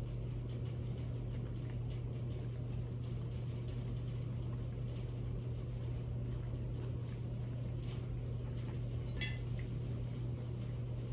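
Quiet eating sounds over a steady low hum, with a single sharp clink of a dish or glass about nine seconds in.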